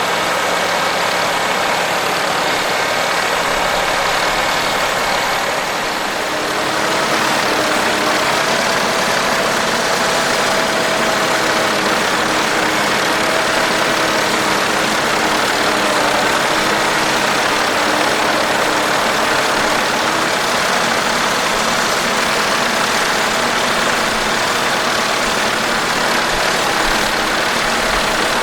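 Tractor engine running steadily, dipping briefly about six seconds in and then settling to a slightly different steady note.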